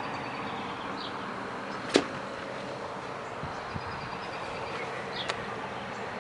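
Outdoor background: a steady hiss with a few short high chirps, a sharp click about two seconds in and a fainter click after five seconds.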